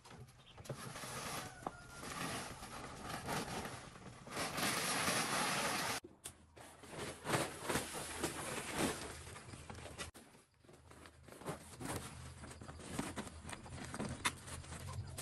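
Plastic tarpaulin rustling and crinkling as it is dragged, shaken out and pressed against a wall, with many short crackles and a loudest stretch of rustling about four to six seconds in.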